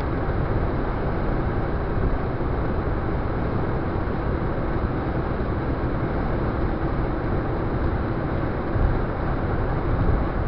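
Steady road noise of a car cruising at motorway speed: an even rush of tyres, wind and engine, heaviest in the low end.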